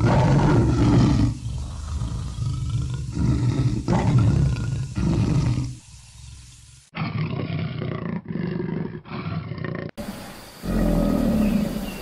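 A big cat roaring and growling, a series of loud, deep calls one after another, broken by short gaps. In the last two seconds a different, lower rumble follows.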